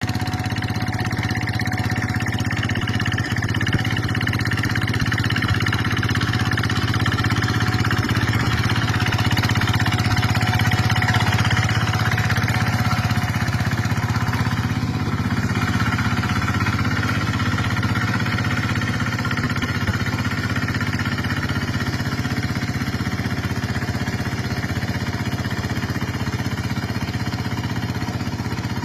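Small paddy tractor's engine running steadily while it plows a wet rice field.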